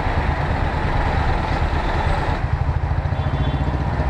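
Royal Enfield 350 Bullet's single-cylinder engine running at low speed, a steady low pulsing, with the engines of trucks close alongside.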